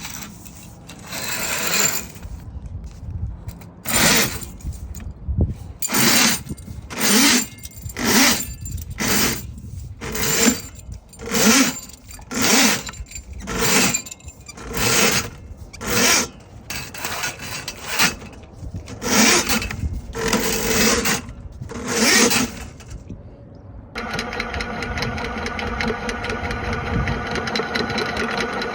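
Drain-cleaning machine running a cable with a spade bit down a plumbing roof vent to clear a clogged main line. It surges rhythmically about once a second for some twenty seconds, then about 24 seconds in changes suddenly to a steady motor hum at a fixed pitch.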